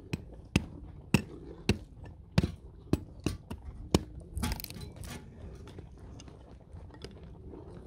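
A small hatchet chopping thin kindling sticks on a wooden block: about nine sharp, separate strikes in the first four seconds, then a brief scraping rustle.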